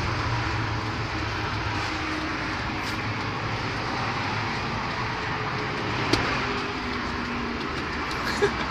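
Steady road traffic noise with a low hum underneath, broken by two short knocks, one about six seconds in and one near the end.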